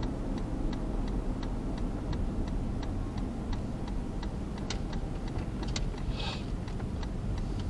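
Car turn signal ticking steadily, about three clicks a second, over the low rumble of the car on the road while turning left; the ticking stops about five seconds in, followed by a couple of single clicks and a short hiss.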